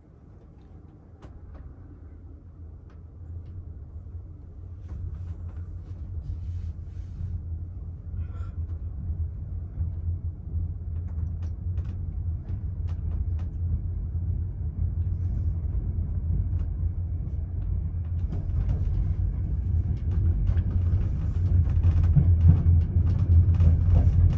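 Low rumble of a sleeper coach rolling on the rails, heard from inside the cabin, growing steadily louder as the train gathers speed. Scattered sharp clicks of the wheels over rail joints and points run through it.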